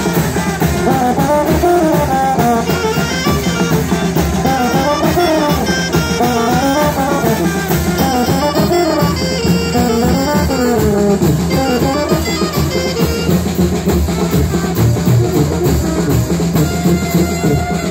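Live brass band playing a lively tune, with brass carrying a wavering melody over a steady beat of bass drum and cymbals.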